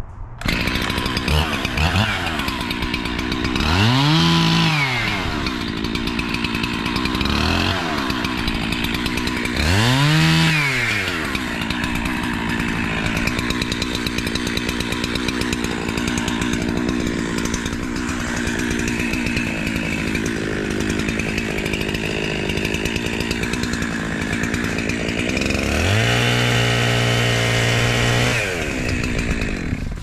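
Gasoline chainsaw starting up about half a second in, then revved up and down in a few blips and left idling steadily. Near the end it is held at high revs for about two and a half seconds, then drops back.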